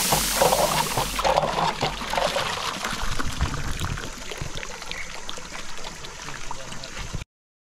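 Water trickling, with electronic background music fading out over the first two seconds. The sound cuts off abruptly near the end.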